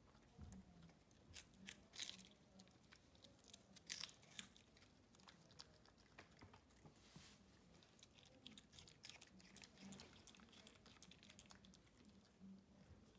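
A small dog chewing raw cabbage leaves, with irregular crisp crunches and bites, the strongest about two and four seconds in.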